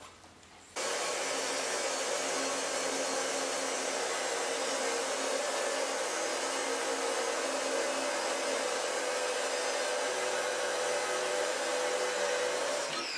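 Abrasive chop saw cutting through a steel bar: a steady grinding hiss with a constant high tone, starting abruptly about a second in.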